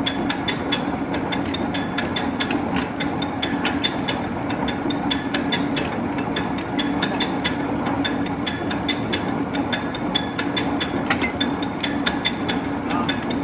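Niles 24-foot bed lathe with a 25 hp drive running at slow spindle speed with the carriage's longitudinal power feed engaged: a steady machine hum under a quick, uneven clicking of gears.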